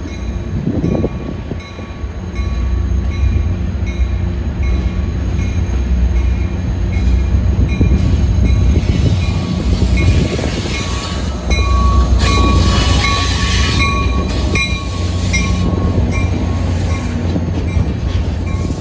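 Two EMD F40PH-2CAT diesel locomotives rumbling past at close range as they pull a passenger train into the station. A bell rings about twice a second through the first half. A thin wheel squeal and a loud hiss rise as the train crosses the switches, with wheel knocks over the rail joints.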